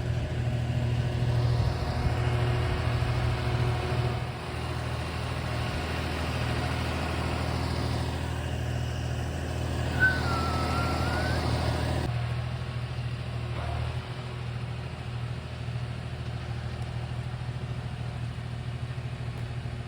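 Farm tractor engine running steadily as the tractor drives along slowly. About ten seconds in there is one short high chirp.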